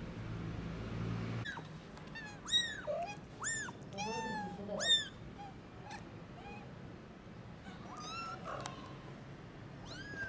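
Young kittens mewing: short, high-pitched calls that rise and fall, several a second from about a second and a half in to about five seconds, then a few more near the end. A low steady hum underneath stops about a second and a half in.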